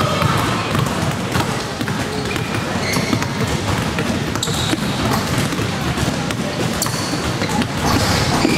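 Several basketballs being dribbled and bouncing on a hardwood gym floor, irregular overlapping thuds, over the chatter of people in the gym.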